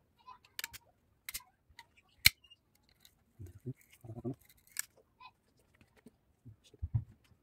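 Sharp metallic clicks, the loudest about two seconds in, then a few soft knocks: a piston being handled and set against the bores of a bare four-cylinder engine block.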